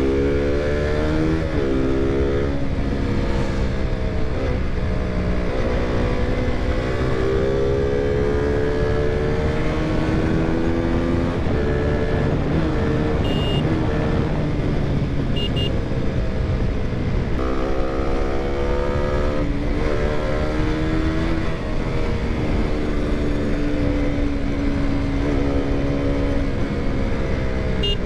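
KTM single-cylinder motorcycle engine pulling through the gears on a ride. The revs climb and drop back at each shift, ease off about two-thirds of the way in, then climb again, over a steady low wind rumble.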